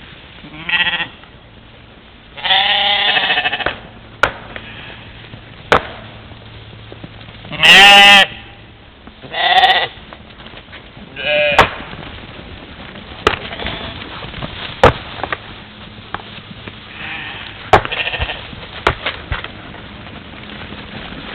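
European mouflon bleating: about five separate bleats, one of them drawn out, the loudest about eight seconds in, with a few sharp clicks scattered between them.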